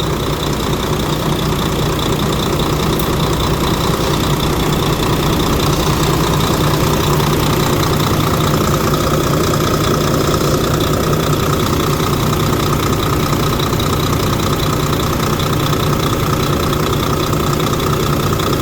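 Volvo D13 six-cylinder diesel idling steadily while it warms up, freshly rebuilt and just started after a repair for an engine knock.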